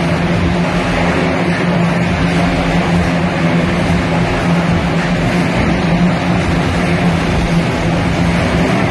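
Several motorcycles running inside a steel-mesh globe of death, their engines at a loud, steady, unchanging pitch as they circle the sphere.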